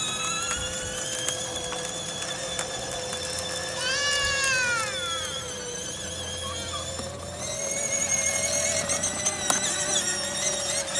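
Battery-powered ride-on toy ATV's electric motor and gearbox whining steadily as it drives. A brief high falling squeal comes about four seconds in.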